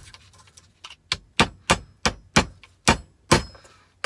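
Hammer blows clanging on metal, bashing down scrap from stripped capacitors: a short pause, then about eight quick strikes at roughly three a second.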